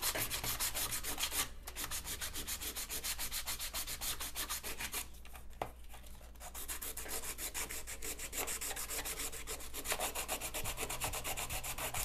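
Sandpaper rubbed quickly back and forth by hand over the painted body of a Hot Wheels toy truck trailer, scuffing off the shiny coating: a fast run of even scraping strokes. It eases off briefly about a second and a half in and again around five to six seconds in.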